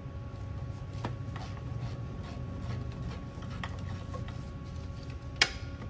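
Gloved hands working among engine parts: light rubbing and scattered small clicks, with one sharp click near the end, over a steady shop hum.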